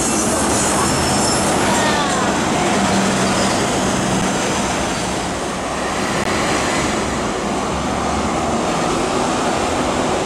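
MTR metro trains running on an elevated track: a steady rumble and rush of steel wheels on the rails, with a faint high wheel squeal in the first second or so.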